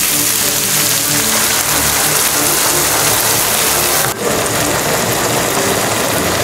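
Food sizzling in a frying pan, a dense steady crackle, over background music. The sizzle changes abruptly about four seconds in.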